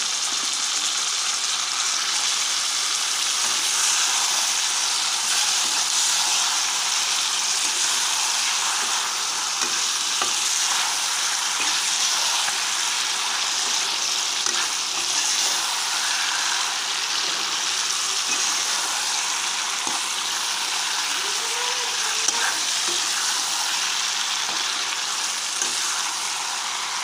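Raw chicken pieces sizzling steadily in hot oil and spice paste in a karahi, while a metal slotted spatula stirs and turns the meat and potatoes through the masala with a few faint scrapes and clicks.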